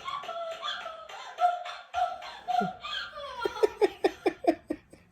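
A high voice making drawn-out, sliding cries, then a quick run of short 'ah-ah-ah' bursts, about five a second, near the end.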